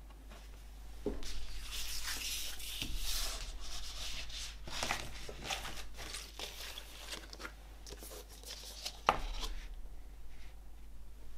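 A vinyl LP rustling and scraping as it is slid into its inner sleeve and handled, with small clicks of the record and sleeve against each other. A single sharp knock on the tabletop comes about nine seconds in, as the sleeve is laid down.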